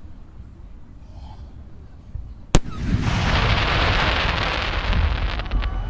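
Aerial firework shell bursting with one sharp bang about two and a half seconds in, over a low rumble. It is followed by about three seconds of dense crackling, with a few separate pops near the end.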